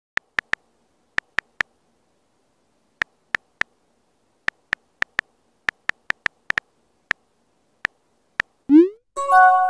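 Phone on-screen keyboard key-click sounds: sharp identical taps in irregular runs as a message is typed. Near the end comes a quick rising swoosh, then a ringing chime of several tones.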